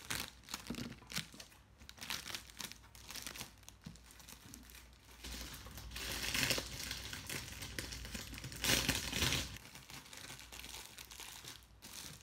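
Clear plastic wrapping crinkling as it is handled and folded, in a string of short crackles, with two longer, louder spells of crinkling past the middle, the later one the loudest.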